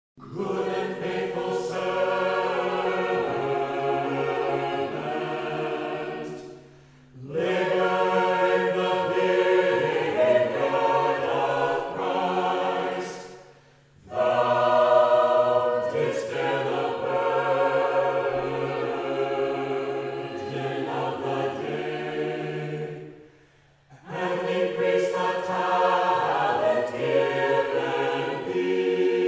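Orthodox church choir singing Galician chant a cappella, in phrases separated by three short pauses, over a held low bass line.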